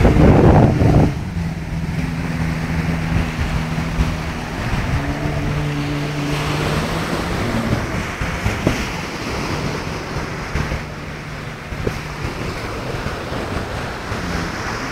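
Jet ski engine droning steadily offshore, its pitch shifting briefly about five seconds in and fading later on, over surf breaking on the beach. A loud rush of noise fills the first second.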